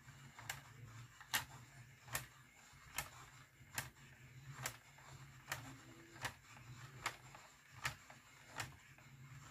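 AP bulk film loader being hand-cranked to wind 35mm film onto a cassette spool, its winding mechanism clicking faintly and evenly, a little more than once a second.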